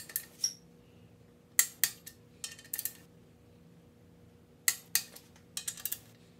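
Sharp metallic clicks and clinks from a torque wrench and its socket on the main-cap stud nuts of a Ford 4.6 V8 block, as the nuts are torqued one after another. The clicks come in five short groups a second or so apart.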